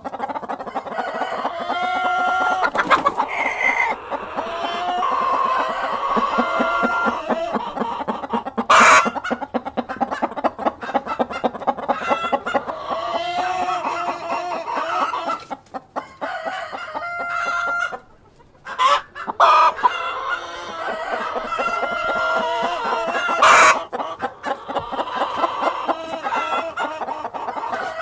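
A flock of hens clucking and calling without pause, with a rooster crowing at times. Two short, sharp, loud noises stand out, one about nine seconds in and one about twenty-three seconds in.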